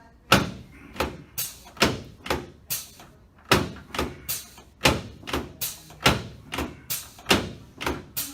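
A run of sharp knocks or thumps, about two a second, slightly irregular in spacing.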